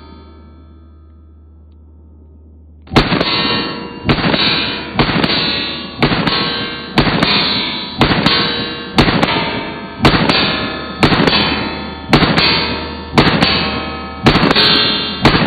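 Glock pistol with a Strike Industries Mass Driver compensator firing about a dozen shots, roughly one a second, starting about three seconds in. Each shot is followed by a ringing tail as the steel targets are struck, and the ring of an earlier shot fades away in the first second or two.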